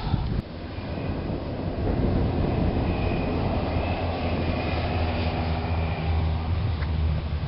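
A motor vehicle's engine running with a steady low hum that gets somewhat louder near the end.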